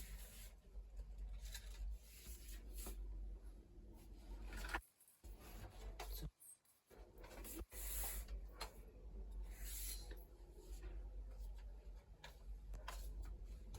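Faint rustling and rubbing sounds of something being handled, over a steady low hum, cut by two brief dropouts to silence about five and six and a half seconds in.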